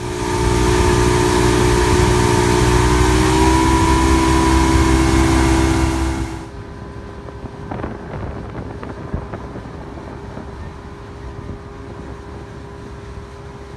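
Motorboat engine running at speed, with wind rushing on the microphone. About six and a half seconds in, the sound drops sharply to a quieter, steady engine hum.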